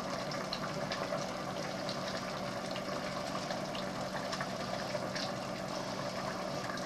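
Pot of sliced cabbage in tomato sauce simmering on the stove: a steady bubbling hiss with occasional small pops over a faint low hum.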